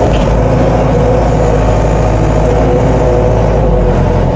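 Collins Teleshift 404 farm loader's diesel engine running steadily while the loader works its hydraulic grain pusher, heard from inside the cab.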